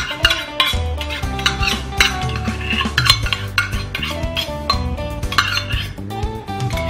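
Background music, with repeated metallic clinks and knocks of a stainless measuring cup tapped against a mixing bowl as yogurt is scooped out of it.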